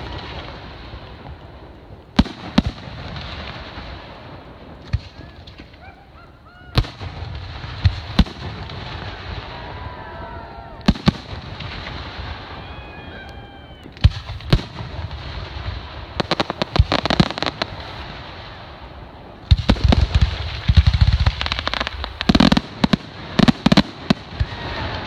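Aerial fireworks shells bursting: a sharp bang every few seconds, building in the last third into a rapid run of bangs and crackle with deep booms. A few short honking calls are heard midway.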